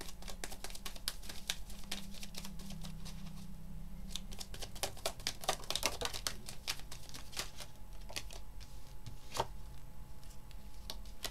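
A deck of tarot cards being shuffled by hand: a rapid, uneven run of small card clicks and snaps, thinning out in the last few seconds as cards are drawn and laid out.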